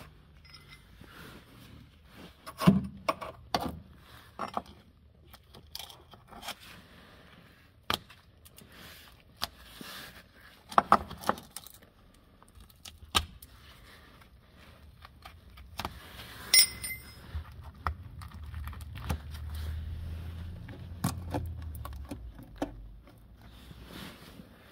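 Scattered metallic clinks, knocks and scrapes at irregular intervals, the loudest a few seconds in. A low rumble rises from the middle and fades near the end.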